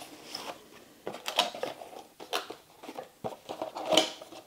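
Cardboard packaging of an RCA interconnect cable being handled and opened: irregular rustling and scraping, with louder scrapes about a second and a half in, around two and a half seconds, and near the end as the inner cardboard sleeve slides out of the box.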